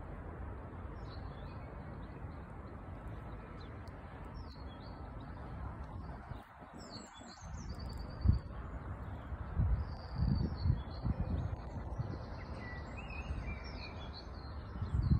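Small songbirds singing: many short, high chirps and trilled phrases, busiest in the second half, over a steady low rumble with a few louder low bursts around the middle.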